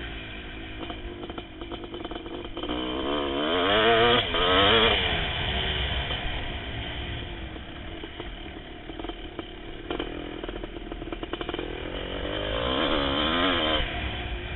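1988 Kawasaki KX500 two-stroke single-cylinder motocross engine running hard under load, its pitch rising and wavering as it revs up about four seconds in and again near the end, with clattering knocks throughout.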